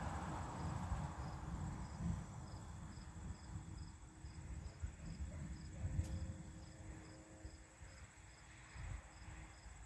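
A cricket chirping steadily, about two short high chirps a second, over a low uneven rumble. The noise of a passing aircraft fades out in the first second.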